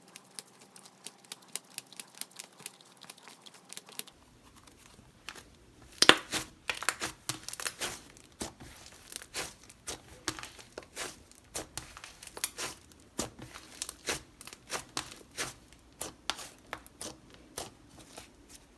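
Butter slime being stretched and squished by hand, giving many quick soft clicks and crackles, busier and louder from about six seconds in.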